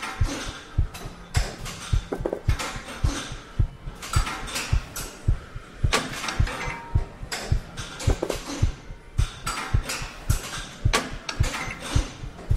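A steady rhythm of short low thumps, roughly three a second, with scattered clicks and crackle over it.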